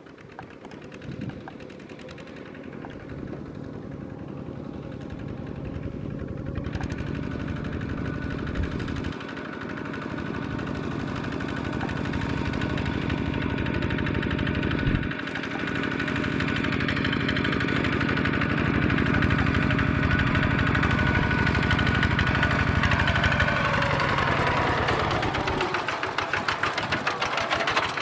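Kubota RT140 single-cylinder diesel engine on a two-wheel walking tractor, chugging steadily under load as it ploughs through mud and growing louder through the stretch.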